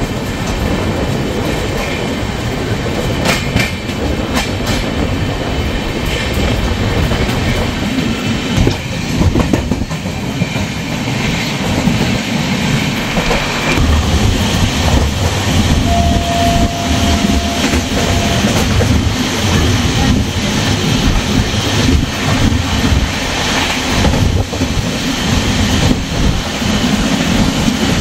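Passenger train running at speed, a steady rumble with wheels clacking over the rail joints. A short steady tone sounds a little past the middle.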